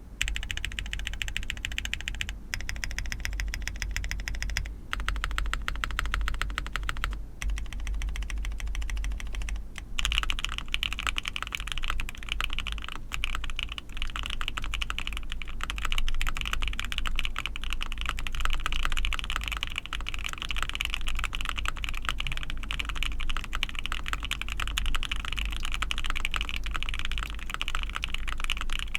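Typing on an Ai03 Vega mechanical keyboard with a POM plate, lubed Hoshizora linear switches and GMK keycaps. The keystrokes come in four quick runs with short breaks over the first ten seconds, then as steady continuous typing.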